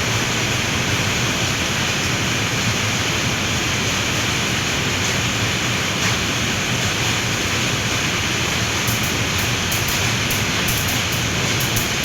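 Very heavy rain pouring down in a steady, even rush.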